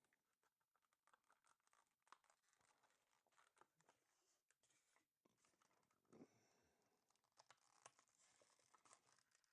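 Near silence, broken by a few faint crinkles and light clicks of small parts and thin film being handled, the loudest about six seconds in.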